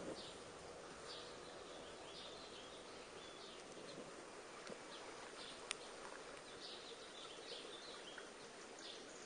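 Faint steady outdoor ambience with scattered short bird chirps and one sharp click a little over halfway through.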